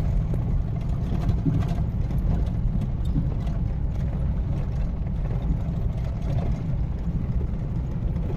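Steady low engine and tyre rumble heard from inside a moving car's cabin.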